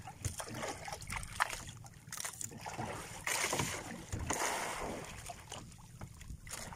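Sea water sloshing and splashing against a small outrigger boat's hull and float, with wind buffeting the microphone; the water noise swells a little about halfway through.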